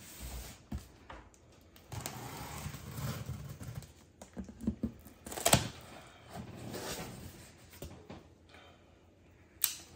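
Tape on a cardboard box slit open with a small blade, then the cardboard flaps pulled open: irregular scraping and rustling with a sharp click near the end.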